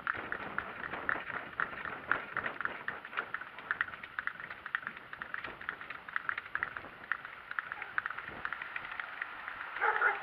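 Donkey's hooves clopping and the cart rattling along as it is pulled, a steady run of quick knocks and clicks. A louder honking call begins right at the end.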